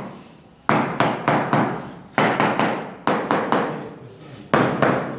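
Repeated sharp knocks, like hammer blows on a hard material, in quick groups of two to four strikes, about a dozen in all, each ringing briefly.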